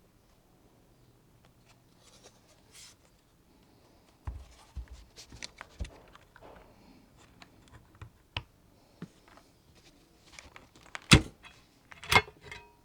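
Hard plastic clicks, taps and knocks from handling a mechanical keyboard and its parts, irregular rather than a typing rhythm, with two louder knocks near the end.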